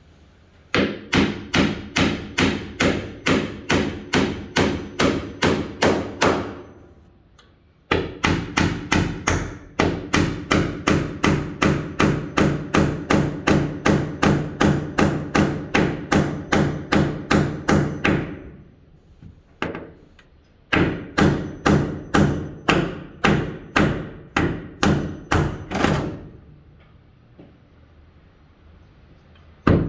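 Hammer driving nails into wood: evenly paced blows about two to three a second, in long runs broken by short pauses, each blow with a low ring. The blows stop a few seconds before the end.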